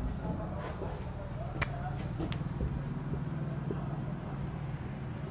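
A cricket chirping in a high, evenly pulsing rhythm over a low steady hum, with one sharp click a little over a second and a half in. Faint scratching of a marker writing on a whiteboard.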